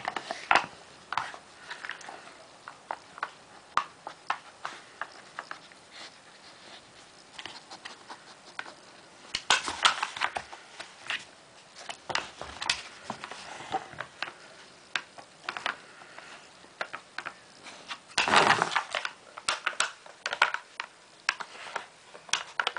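Wooden Dog Casino treat puzzle being worked by a Doberman's nose and paw: irregular clicks and knocks of its drawers and knob locks. Twice, about halfway through and again toward the end, a longer spell of clattering.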